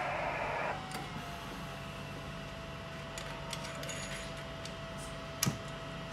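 ICOM IC-7100 transceiver's receiver hiss cuts off suddenly under a second in. A steady whistle tone follows, drops slightly in pitch and then holds. Small clicks from handling the rig and its cables, with one sharp click near the end.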